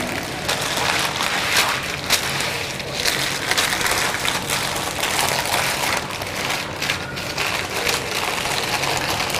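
Plastic zipper-lock bag and wax paper crinkling and rustling as hands work a stack of pastry sheets into the bag and smooth it flat, with many small crackles throughout.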